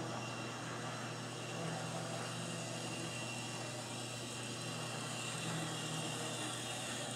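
Brass 2-8-0 Camelback model steam locomotive running on its track: a steady low hum with the whir of its small electric motor, gears and wheels on the rails, growing a little louder as it approaches.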